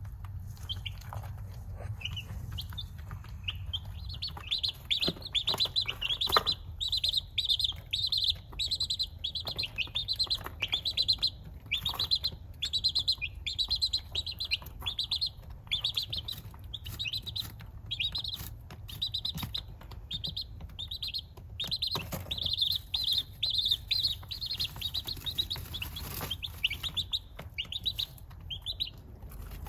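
A baby chick peeping loudly and without letup, a few shrill peeps a second with a brief lull about two-thirds of the way through. This is the insistent distress peeping that the owner takes as a sign the chick is chilly.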